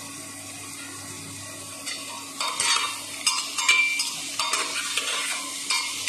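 Metal ladle scraping and knocking against a pressure cooker as chopped tomatoes and vegetables are stirred, over a steady sizzle of frying; the stirring strokes begin about two seconds in.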